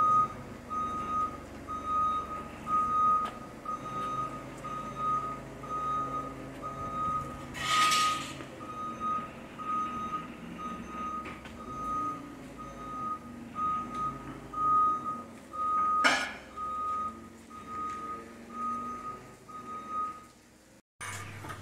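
Forklift backup alarm beeping steadily, about two beeps a second, over the forklift's engine running as it moves with the lifted axle. Two short bursts of hiss break in, about a third and three quarters of the way through, and the beeping stops near the end.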